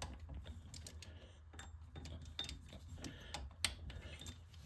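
Click-type torque wrench ratcheting on a garden tractor's rear axle nut: scattered faint metallic clicks, with one sharper click a little past three and a half seconds in.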